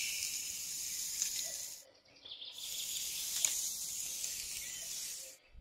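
Small metal hoe blade scraping a line through fine sand, a dry, hissy scrape in two strokes with a short pause about two seconds in.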